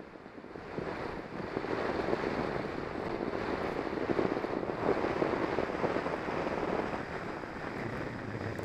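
Wind buffeting the microphone of a bike-mounted action camera while riding, a steady rushing noise that grows louder about a second in, with tyre noise on wet tarmac.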